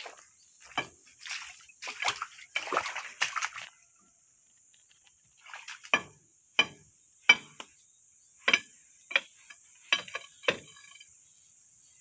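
Wet, packed mud being scraped and gouged out of a crawler track's undercarriage with a metal rod, a sloppy squelching scrape. About halfway through it gives way to a series of sharp metallic knocks, roughly every two-thirds of a second, as the rod strikes the steel track roller and links.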